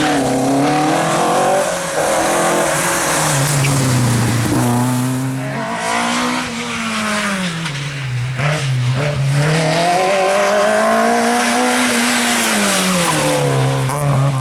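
Rally car engine running hard, its revs swelling up and falling back again and again through acceleration, braking and gear changes, with tyre noise underneath.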